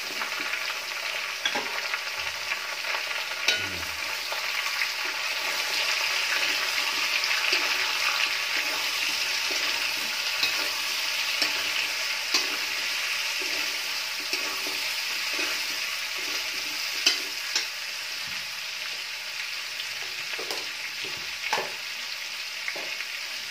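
Chopped onions and garlic frying in hot oil in a steel kadhai, with a steady sizzle. A steel spoon stirs and scrapes the pan, clinking against it a few times.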